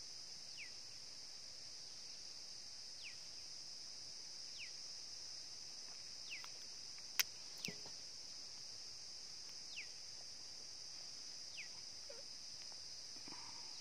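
A steady high-pitched insect drone, with a bird repeating a short falling whistle every couple of seconds. A single sharp click about seven seconds in is the loudest sound.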